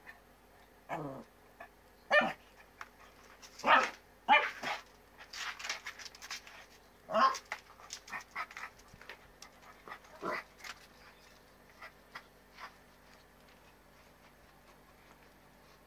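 Small dog in a plastic cone giving a string of short yips and barks, several falling in pitch, mostly in the first ten seconds, with light clicks and scuffles between them; only faint clicks near the end.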